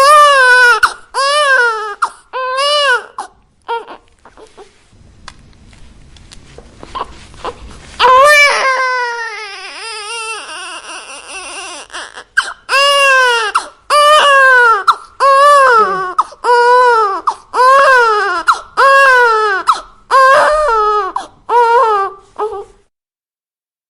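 Newborn baby crying in short wails of under a second each, every one rising then falling in pitch. After a few seconds it drops to faint whimpers. It comes back with a long falling wail, then a steady run of about one cry a second that stops abruptly near the end.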